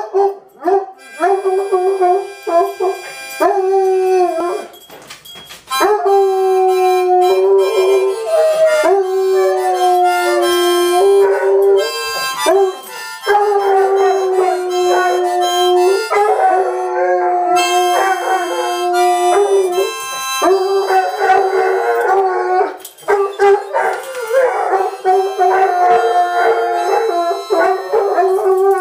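A redbone coonhound howling along to a harmonica, its long drawn-out howls held over the harmonica's notes, with a short break about five seconds in.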